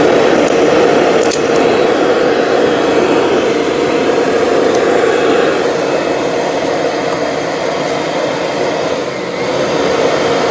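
Kirby upright vacuum cleaner's motor and fan running loud and steady with a droning hum. A couple of sharp clicks come in the first second and a half, as debris fed into the fan chamber hits the fan.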